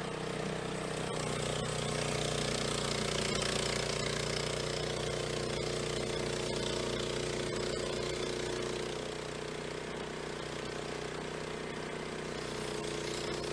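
An engine running steadily at an even speed, easing slightly lower in level and pitch about nine seconds in.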